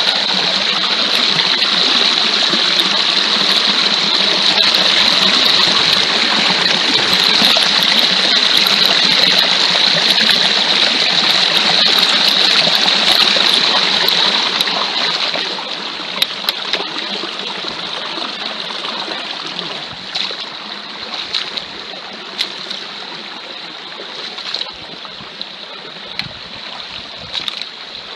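Shallow stream water rushing and splashing as someone wades through it in wellies. The rushing is louder for roughly the first half, then drops, leaving separate splashes and knocks of footsteps in the water.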